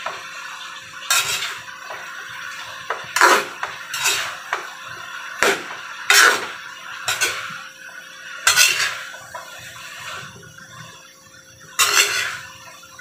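Metal spatula scraping and clanking against a stainless steel honeycomb wok as a panful of shredded cabbage and vegetables is tossed, in about eight irregular strokes a second or two apart.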